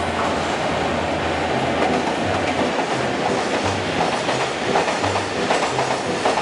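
A freight train of cement powder hopper wagons, led by an R160 diesel locomotive, passes through without stopping. The locomotive's steady engine hum gives way after about a second and a half to the wagons rolling by, their wheels clacking over the rails in a regular rhythm.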